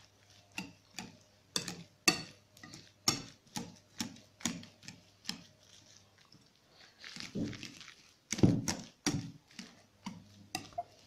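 Wire potato masher pressing hot boiled potatoes in a bowl: repeated soft knocks and squishes, about two strokes a second, the hot potato giving way easily. The strokes grow heavier for a moment a little past the middle.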